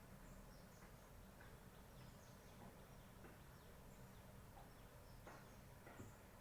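Near silence: a steady low room hum with faint, scattered short high chirps and clicks.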